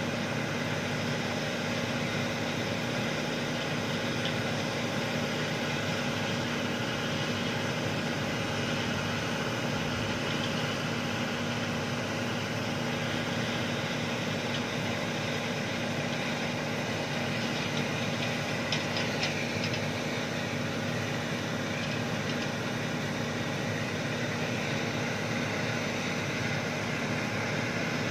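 Heavy diesel engine of a dump truck or excavator running steadily, with a few faint clicks about two-thirds of the way through.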